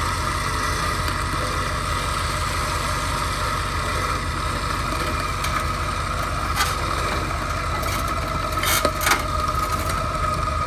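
Truck winch running under load, a steady whine over the truck engine's idle as it hauls a rusted truck body on its cable. A few sharp knocks come about six and nine seconds in.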